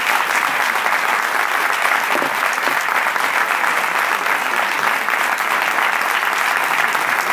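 Audience applauding in a steady, sustained round of clapping.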